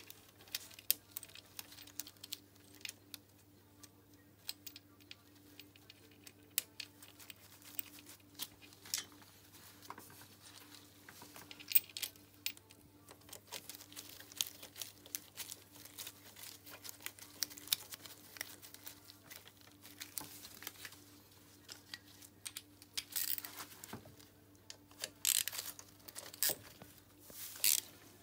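Small metallic clicks and taps of hand work on a moped engine: the metal retaining plate and bolt of the starter-motor pinion being fitted, then the bolt turned with a socket wrench, with short runs of clicking near the end. Nitrile gloves rustle throughout, over a faint steady hum.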